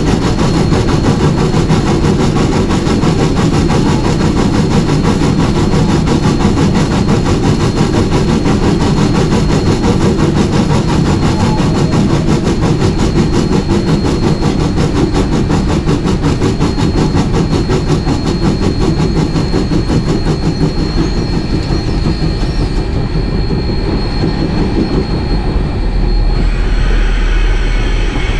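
Rio Grande Southern No. 20, an 1899 4-6-0 Ten-Wheeler steam locomotive, running under way, heard from its cab: a steady, rapid mechanical rhythm from the engine and running gear. A deeper low rumble grows near the end.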